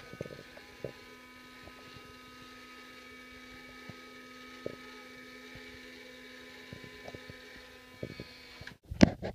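Small electric reel motor of an automatic chicken coop door opener running with a faint, steady hum as it winds the string that swings the plywood flap door. The hum stops abruptly near the end, followed by a few loud knocks.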